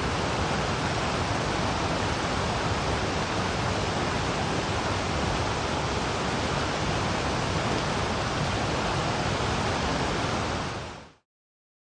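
Waterfall and river water rushing steadily, then cutting off in a quick fade to silence about eleven seconds in.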